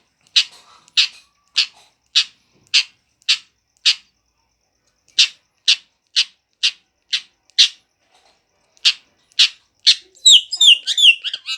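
Pet parrot repeating a short, harsh high call about twice a second, breaking off for about a second and then starting again. Near the end it switches to a quick run of chirpy whistled notes that fall in pitch.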